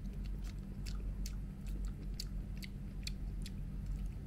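Close-up chewing of a mouthful of cooked, seasoned oyster meat, with wet mouth clicks about two or three a second, over a low steady hum.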